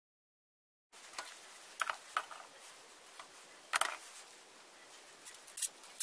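Small tools and metal parts handled on a wooden workbench: scattered sharp clicks and taps, starting about a second in, over faint room noise.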